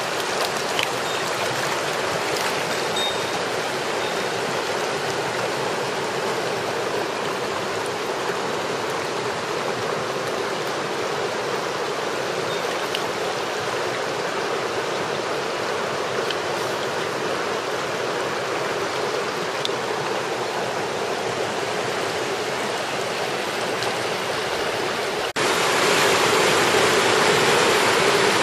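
A small mountain stream flowing and babbling close by, steady throughout. Near the end it cuts suddenly to a louder rush of white water tumbling over rocks.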